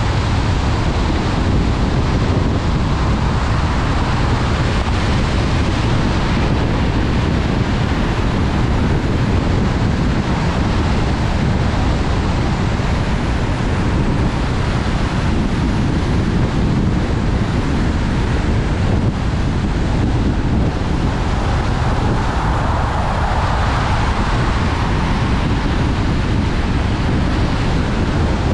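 Steady road and wind noise of a car travelling at highway speed on wet pavement, tyres hissing over the wet road.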